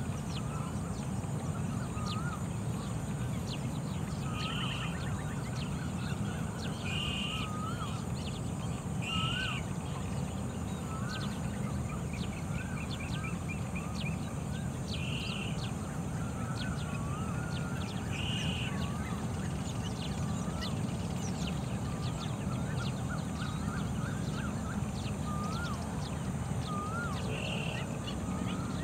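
Baillon's crake calling, short notes repeated every few seconds, with other birds' short hooked calls behind it. Over it lie a steady low rumble and a faint high steady hiss.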